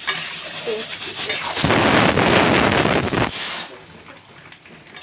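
Phone microphone rubbed and knocked as the phone is handled: a loud rumbling scrape for about a second and a half near the middle. Under it is the hiss of chicken frying in a wok.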